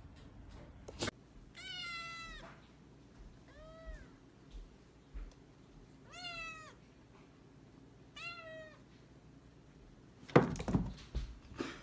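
Young tabby cat meowing four times, each call rising and falling in pitch. Near the end come several loud thumps and knocks.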